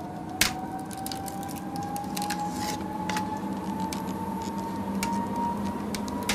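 Sound-effect bed under a climbing test readout: a thin tone slowly rising in pitch, with scattered small clicks and creaks. There is a sharp knock about half a second in and a loud hit right at the end.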